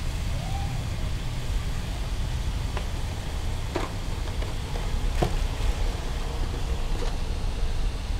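Squid frying in a wok on a portable gas stove: a steady low rumble with sizzling over it, and a few short clinks and scrapes of the metal spatula against the pan.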